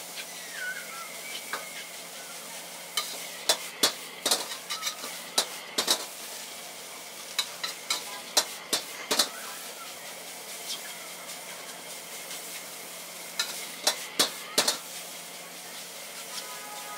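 A long steel ladle clanking and scraping against a wok during stir-frying, in clusters of sharp strikes, over a steady sizzle of food frying in the hot wok.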